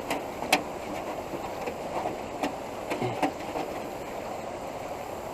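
Steady rush of fast-flowing floodwater in a creek, with a few sharp clicks and light knocks near the start and again about three seconds in.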